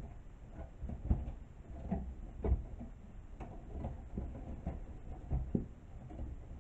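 Irregular light knocks and clicks of wooden clothespins on a wire wreath frame being handled, with the rub of nautical rope being fitted around it.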